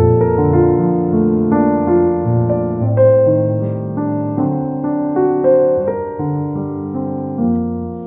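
Background piano music: a flowing run of notes, several sounding together, changing every half second or so.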